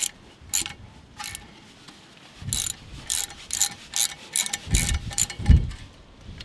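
Hand ratchet clicking in short strokes as it turns the small T30 Torx screw that holds the brake rotor to the hub, with a few dull low thumps near the end.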